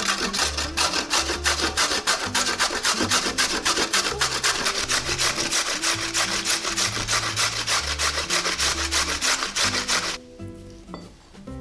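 Rapid, even scraping strokes of vegetables being worked against a blade, about five a second, stopping abruptly about ten seconds in, over background music.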